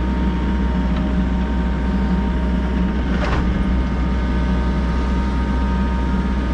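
Volvo EC60E excavator's diesel engine running steadily under work, a constant hum with a steady whine. A short rasping noise a little over three seconds in.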